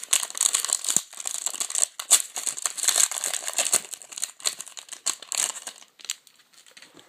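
Crinkling and tearing of a trading-card pack's wrapper as the pack is opened, a dense crackly rustle that dies down about six seconds in, leaving a few small handling clicks.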